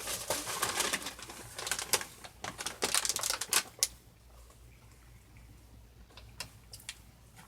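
Plastic snack packaging crinkling and crackling as it is handled, dense for about four seconds, then only a few scattered light ticks.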